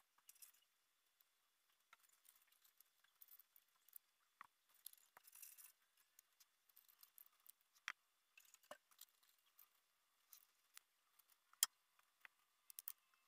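Near silence with faint scattered clicks and one sharper click late on: glass spawn bottles filled with bamboo strips being handled and set down.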